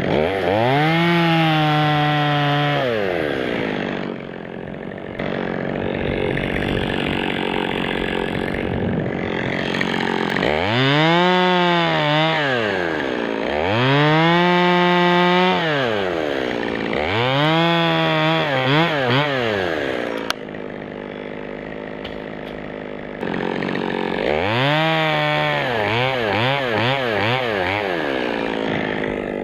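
Two-stroke chainsaw revved up to full speed and let back down to idle about five times. In the later revs the pitch wavers quickly up and down as the throttle is blipped.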